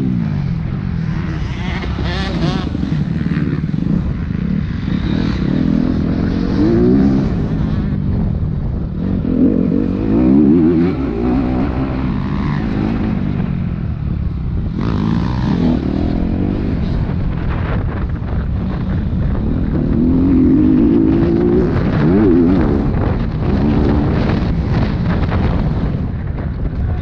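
Motocross dirt bike engine, heard close from the bike's own camera, revving up and falling back again and again as the rider accelerates, shifts and backs off around a dirt track.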